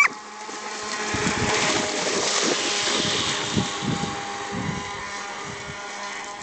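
Traxxas Blast electric RC boat speeding across a pond: a steady motor whine over the hiss of its spray, swelling over the first few seconds and then fading as it moves away. A dog barks once at the very start.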